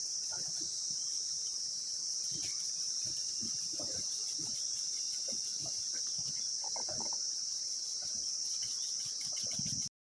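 Steady, shrill insect chorus, a high-pitched drone with a fast pulsing texture, that cuts off suddenly near the end.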